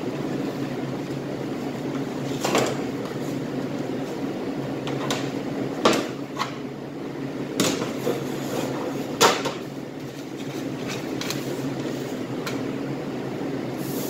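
Plastic meat display trays being handled and set down on a cutting table: several sharp knocks and clacks a few seconds apart, over a steady low hum.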